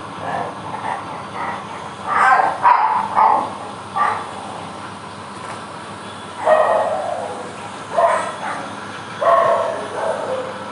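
A dog barking several times at irregular intervals, each bark short.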